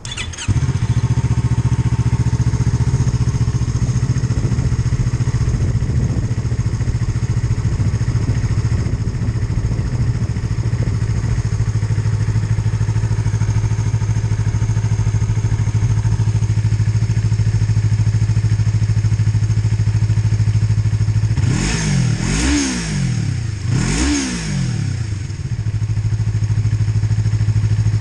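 Yamaha MT-03's 321 cc parallel-twin engine, breathing through an Arrow Pro Race slip-on exhaust, starts up right at the beginning and settles into a loud, steady idle. It is blipped twice near the end, the pitch rising and falling each time, then drops back to idle.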